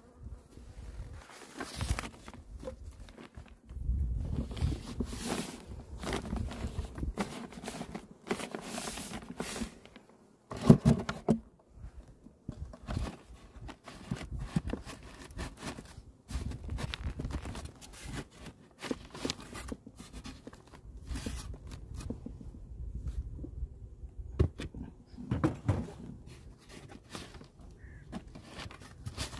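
A beehive being closed up by hand: scraping and rustling as the plastic cover sheet and the hive lid are pushed and shifted into place, with one sharp knock about eleven seconds in.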